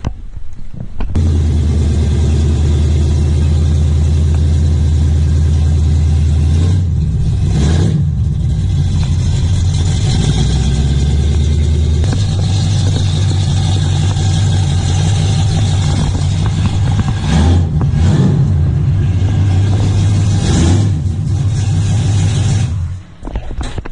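1970 Chevrolet Camaro's engine running at a deep, loud idle, blipped a few times, then shut off near the end.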